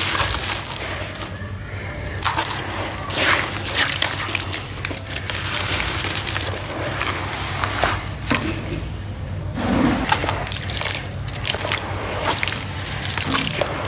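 Dry sawdust-and-sand chunks crumbling into water, with crackly, hissing crumbles and sloshing that come in repeated bursts a second or two apart.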